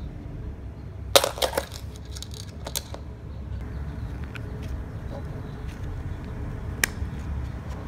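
Plastic coil-spring toy being handled, its plastic coils and end caps clicking and clattering together: a quick run of clicks a little after a second in, a few more soon after, and one sharp click near the end, over a low steady rumble.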